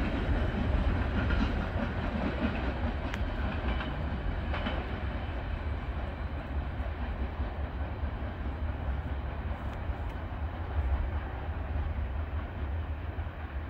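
Oil train of tank cars rolling away on the rails, a steady rumble of wheels on track that slowly fades into the distance.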